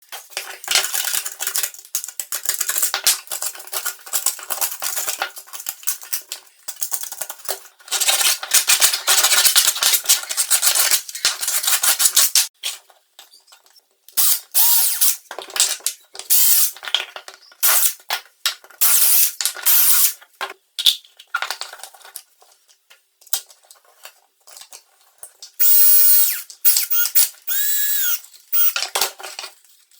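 Power tools working on plastic sewer pipe in short, stop-start bursts of drilling and grinding. Late on, a tool's pitch rises and falls as it speeds up and slows down.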